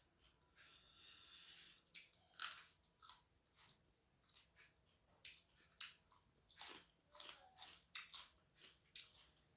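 Quiet close-miked eating: chewing a mouthful of rice and curry, with irregular wet mouth clicks and smacks and the odd crunch.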